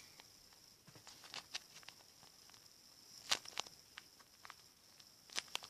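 Paper squishy being handled: faint crinkling with scattered sharp clicks, the loudest a little over three seconds in and again near the end, over a faint steady high hiss.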